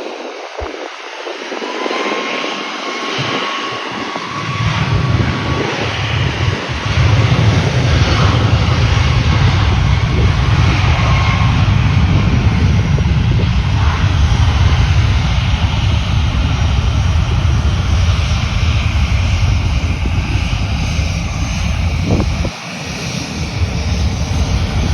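Southwest Airlines Boeing 737 jet engines at takeoff power. A whine is heard at first, then a heavy rumble builds about five to seven seconds in and holds loud, with a brief dip near the end.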